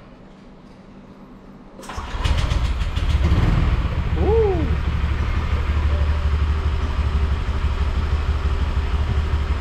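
Honda Vario scooter's single-cylinder four-stroke engine started about two seconds in, catching at once and then idling steadily. This is the first start on fresh engine oil after an oil and gear-oil change, and the idle sounds smooth, not rough.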